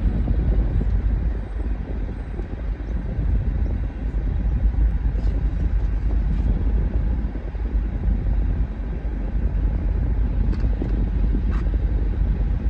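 Steady low rumble of a car on the move: engine and road noise heard from inside the car.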